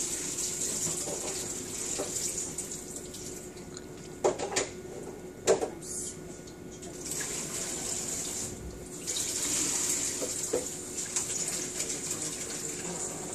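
Water running from a tap into a sink, dropping away for a few seconds in the middle, with a few sharp knocks about four to six seconds in.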